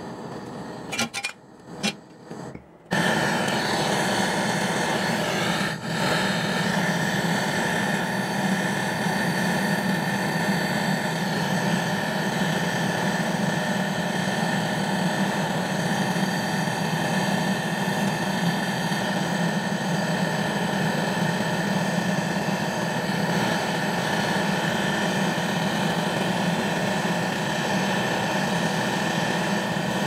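Butane canister gas torch burning steadily with an even hiss, its flame held on a refrigerator filter-drier joint to braze a leak. It starts suddenly about three seconds in, after a few short handling sounds from pliers.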